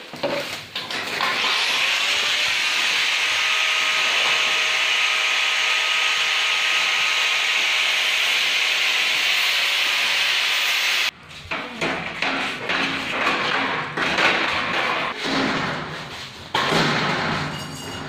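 A loud steady hiss for about ten seconds, cutting off abruptly. After it come irregular knocks and clatter as steel gondola shelving panels are handled and set in place.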